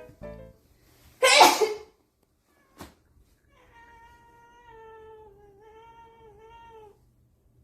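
A loud, short sneeze about a second in, then a domestic cat gives one long, wavering meow lasting about three seconds.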